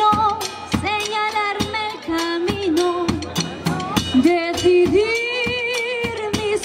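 Live band playing a song: a wavering lead melody with long held notes over drum kit and hand percussion keeping a steady beat.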